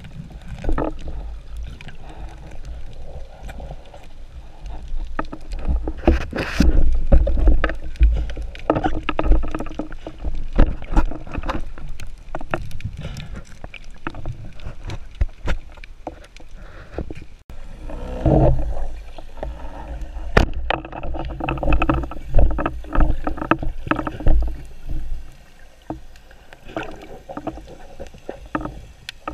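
Muffled underwater sound through a camera's waterproof housing: low rumbling water movement with many short clicks and knocks.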